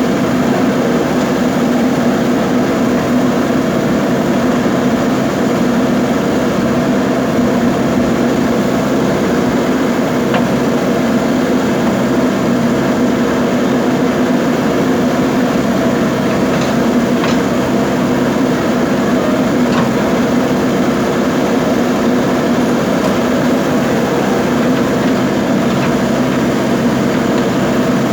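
Diesel engine of a JCB backhoe loader running steadily under work, with a constant drone and a few faint clicks about two-thirds of the way in.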